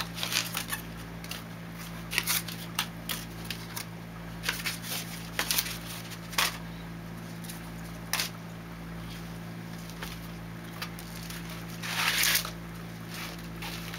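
Unpacking handled by hand: scattered rustles and clicks as packing straps and power cords are pulled loose, with a longer rustling scrape near the end as the algae scrubber is slid free of its foam packing. A steady low hum runs underneath.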